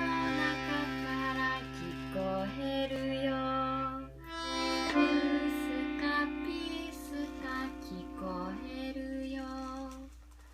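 Music on a sustained-tone instrument: held notes and chords, with a low drone under the first four seconds, then a higher held note with a simple melody above it, fading near the end.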